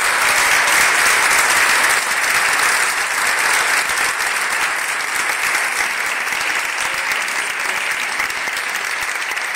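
An audience applauding, a dense clapping that is loudest in the first couple of seconds and eases slightly toward the end.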